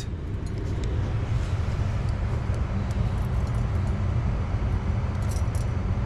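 Keys jingling on the ring as the ignition key of a Scion tC is turned, near the end, with no starter click and no cranking: the starter is not engaging at all. A steady low hum runs underneath.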